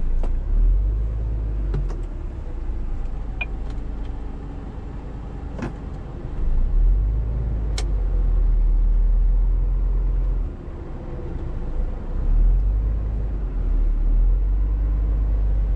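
Scania R410 truck's 13-litre six-cylinder diesel engine heard from inside the cab, working hard in surges that swell and ease as the truck fights for grip in deep snow with its drive wheels spinning. A few sharp clicks sound in the cab.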